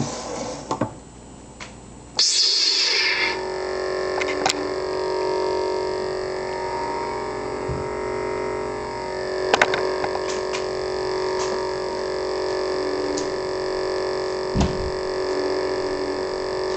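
Custom lightsaber's Crystal Focus 4.31 sound board igniting about two seconds in with a second-long rushing surge from its speaker, then holding a steady electric idle hum. A few short clicks sound over the hum.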